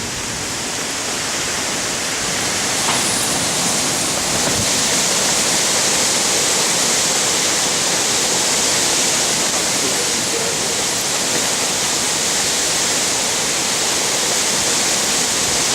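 Heavy rain and wind of a severe storm, a loud steady rushing noise with no letup.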